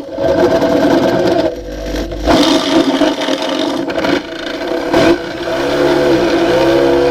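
Power drill running and boring into the bus's steel bodywork, its motor speed sagging and picking up again as the bit binds, most clearly near the end. The bit is too long and is hitting the chassis rail inside.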